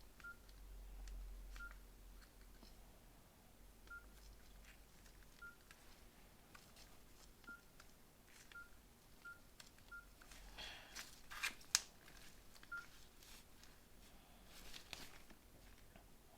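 Nokia N80 keypad tones: faint short beeps at one pitch, one per key press, spaced irregularly a second or two apart as the phone's menus are worked. Handling clicks and rustles of the phone come in about two-thirds of the way through and again near the end.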